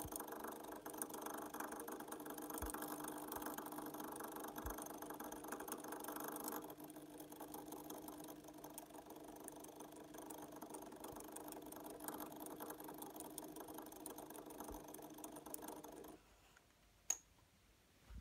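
Newly fitted electric can motor and gear drive of a Fulgurex 050TQ model steam locomotive running the chassis on a test stand: a steady whir from the motor and the turning wheels and side rods. It runs quieter from about a third of the way through, stops a couple of seconds before the end, and a single sharp click follows.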